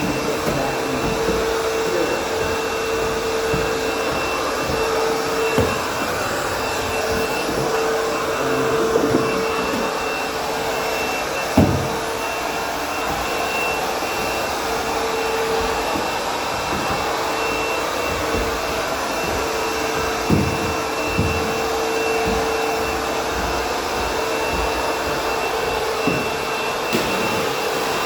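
Vacuum cleaner running steadily with a constant motor hum, cleaning carpeted stairs, with a few short knocks as it is moved against the steps.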